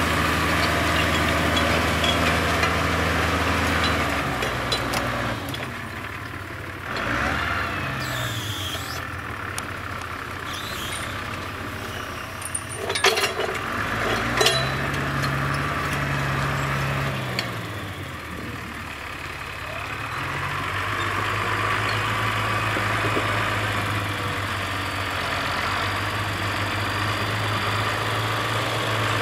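John Deere 6600 tractor's diesel engine working steadily under load as it pulls a four-furrow reversible plough. The sound then fades as the tractor moves away, and its engine note rises and falls about a quarter of the way in. A couple of sharp clanks come near the middle, and the engine is heard running steadily and louder again in the last third as the tractor returns with the plough raised.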